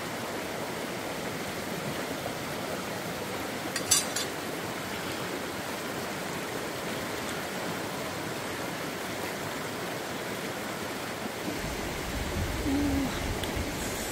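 Steady rushing of running water, with one sharp click about four seconds in and a brief low tone near the end.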